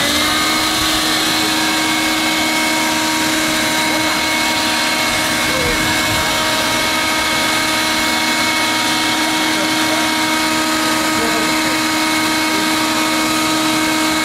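Electric air blower switching on and spinning up, then running steadily with a constant hum and whine, inflating a water walking ball.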